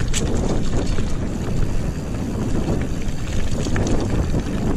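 Wind buffeting the action camera's microphone on a descending mountain bike, over the rumble of the tyres rolling on a rough dirt trail, with a few faint knocks from the bike.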